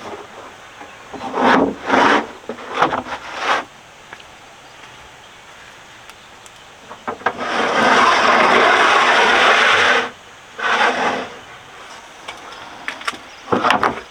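Wood being worked by hand: a cluster of knocks and scrapes, then a steady rasping stretch of about two and a half seconds mid-way, then a few more strokes near the end.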